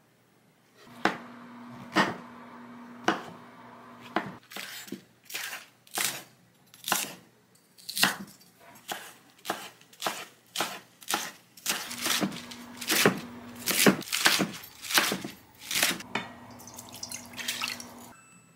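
Chef's knife chopping bok choy and napa cabbage on a wooden cutting board: a steady run of sharp cuts, about one a second at first, then about two a second.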